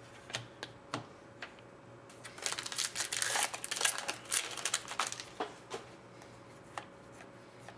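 An Upper Deck hockey card pack's foil wrapper being torn open and crinkled, a burst of crinkling from about two to five seconds in. Light clicks of the cards being handled come before and after it.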